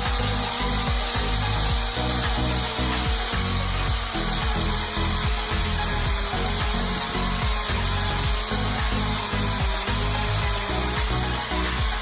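A power tool running steadily on a workpiece, with the steady bass beat of background music underneath.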